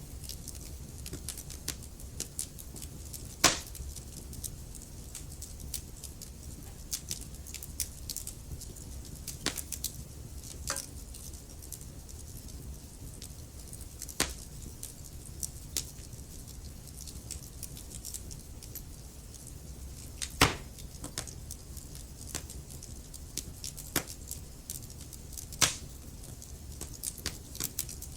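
Wood fire in a fireplace crackling: a steady low rumble of flames with scattered small crackles and a few louder sharp pops, the loudest about 20 seconds in.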